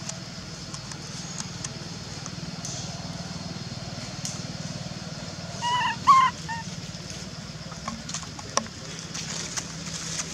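Three short, high squeaky animal calls about six seconds in, over a steady low hum and a high, even hiss. A few light clicks come a couple of seconds later.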